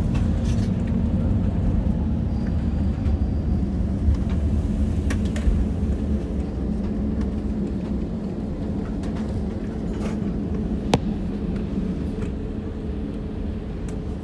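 Airbus A321neo cabin rumble heard from a window seat as the airliner rolls on the ground after landing, steady and slowly easing, with a few sharp clicks and knocks.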